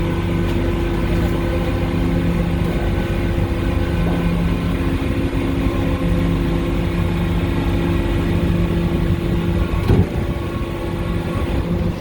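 An engine running steadily at one constant pitch, with a brief knock about ten seconds in.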